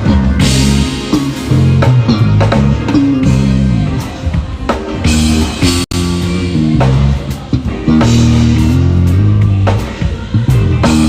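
Electric bass guitar playing a busy low line with a drum kit, loud. The sound drops out for an instant about six seconds in.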